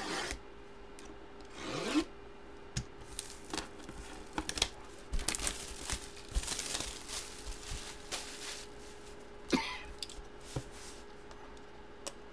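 A sealed cardboard trading-card box being unwrapped and opened: plastic wrap crinkling and tearing, with scrapes, rubs and taps of handling, over a faint steady hum.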